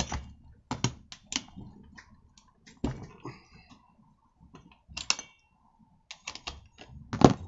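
Metal tools clicking and clinking against a brushcutter engine's crankcase as the nut on the crankshaft end is worked loose with an L-handled socket wrench. Scattered, irregular sharp clicks, the loudest near the end.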